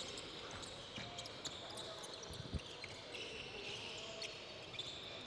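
Quiet sports-hall ambience with scattered faint thuds and taps of players' feet hopping on a wooden court floor, one duller thud about two and a half seconds in, and faint distant voices.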